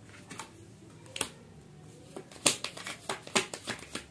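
A tarot deck is handled and shuffled by hand. There are two sharp card clicks in the first half, then a quicker run of card snaps and taps in the second half.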